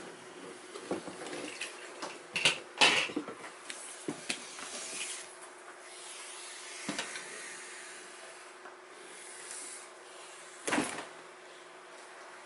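Scattered knocks, clatters and rustles of a cobra being handled in a plastic drawer enclosure: the snake's body and the handler's hand bumping the plastic sides and shifting the bark-chip substrate. There are a few knocks about two to three seconds in and a louder one near the end, over a steady low hum.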